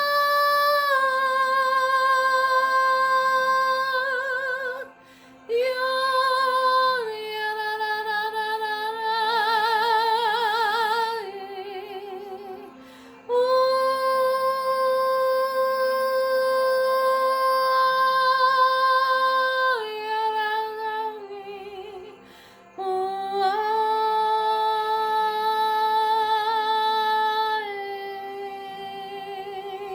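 A woman singing long, held notes in improvised worship, singing in the Spirit, with no clear words, some notes with a wide vibrato and short breaks between phrases. A faint steady low tone sits underneath.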